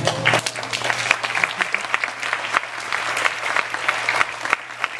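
Audience applauding: many people clapping together in a dense, steady run of claps.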